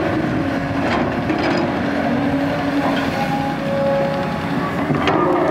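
Caterpillar 320D tracked excavator working: its six-cylinder diesel engine runs steadily under hydraulic load while the boom lifts a bucket of soil, with a whine whose pitch shifts and a few sharp knocks from the bucket and linkage.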